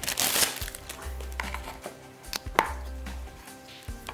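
Plastic bag crinkling briefly, then a few sharp clicks and knocks as an HDMI cable and its plugs are handled in and against a small cardboard box; the loudest knock comes about two and a half seconds in.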